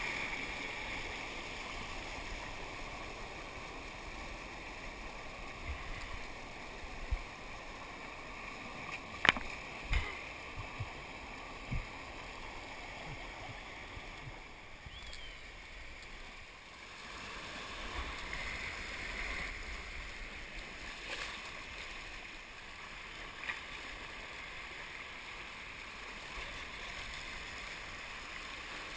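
Rushing water of a rocky mountain creek's rapids, a steady noise close to the microphone, with a few sharp knocks about seven to twelve seconds in.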